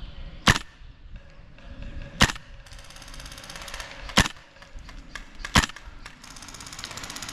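Four single airsoft gun shots close by, about one and a half to two seconds apart. Under the later shots runs a faint, fast rattle.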